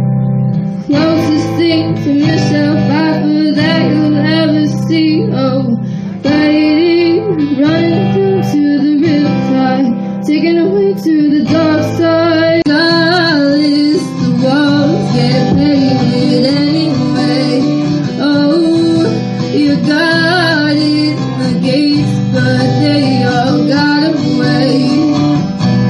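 A woman singing a song while strumming an acoustic guitar, both voice and guitar steady throughout, with a brief pause about six seconds in.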